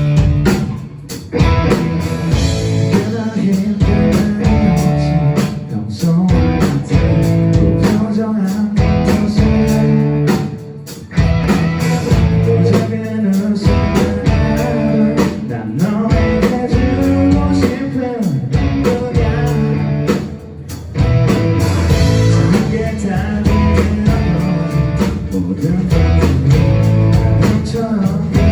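A rock band playing live, with electric guitars, bass and a lead vocal. The band drops out briefly about a second in, again around eleven seconds and again around twenty seconds.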